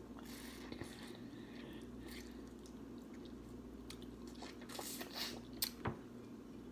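Close-miked chewing and mouth sounds of a person eating, faint, with a few sharper crunches and clicks around five to six seconds in.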